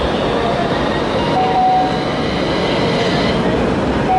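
Toyama Chihō Railway 9000-series low-floor tram (car 9002) running slowly past at close range as it pulls into the stop, with wheel and running-gear noise and a faint motor whine. A short high beep sounds about a second and a half in and again at the end.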